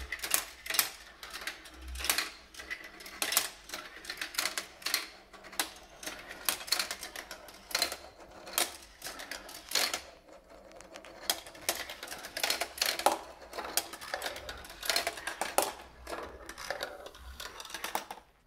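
Marbles rolling down a GraviTrax marble-run tower of plastic track pieces and transparent plates, making many small clicks and clatters at an irregular rhythm.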